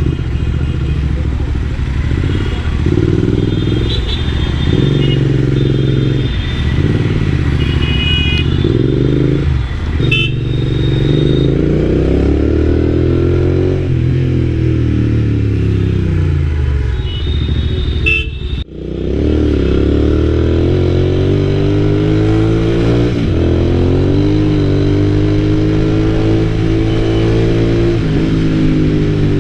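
Royal Enfield Interceptor 650's parallel-twin engine running on the move, its pitch climbing and falling repeatedly as it accelerates and changes gear, with short high vehicle horn toots from traffic now and then. The level drops out briefly about two-thirds of the way through. The sound is free of the crackling that a faulty mic converter had caused.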